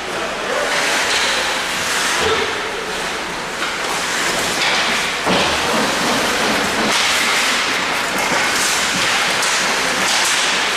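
Ice hockey play up close: skate blades scraping and carving the ice, with sticks and puck clacking and knocking against the ice and boards, and a heavier thud about five seconds in.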